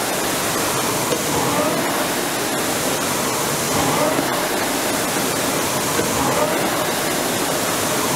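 Concept2 indoor rower's air-braked flywheel fan whooshing steadily under a hard interval. The whoosh swells with each drive, about every two and a half seconds, a rate of roughly 26 strokes a minute.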